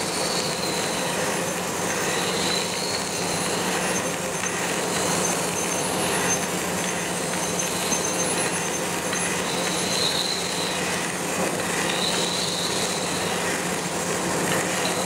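Reid surface grinder taking a light finish cut on a metal plate with a coarse-grain, soft-bond 46H wheel: a steady grinding hiss over the spindle's hum, with a higher squealing tone that swells and fades every few seconds as the table carries the part back and forth under the wheel.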